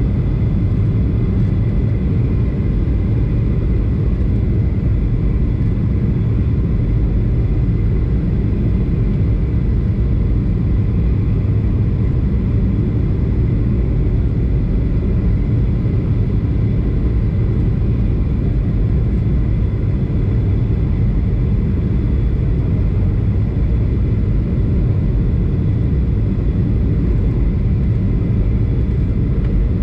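Cabin noise of a Boeing 737-500 on approach, heard from a window seat beside the engine: a loud, steady low rumble of airflow and its CFM56-3 turbofan engines, with a faint steady whine on top.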